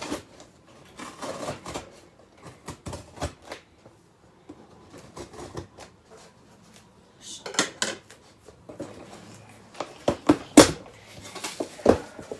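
Food packaging being handled: scattered rustles, crinkles and light knocks, in short clusters with pauses, the loudest knock a little after ten seconds in.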